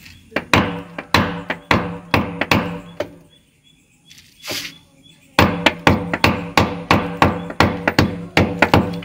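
Repeated hammer blows on the masonry of a well wall, each with a short metallic ring, about three a second. The blows stop for about two seconds in the middle, then resume quicker. The wall is being broken open to reach a trapped cobra.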